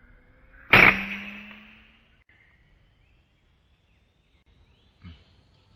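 A single air rifle shot about a second in, a sharp crack that rings briefly as it dies away, followed near the end by a faint short knock.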